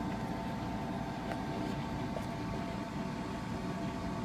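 The boat's air-conditioning unit running: a steady hum with a thin constant whine, a few faint clicks over it.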